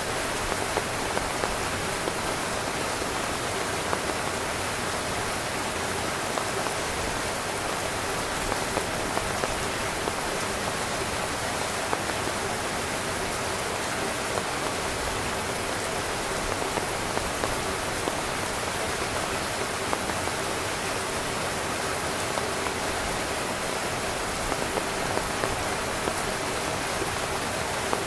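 Heavy rain falling steadily on a tent, a dense even hiss with many small drop impacts pattering on the fabric.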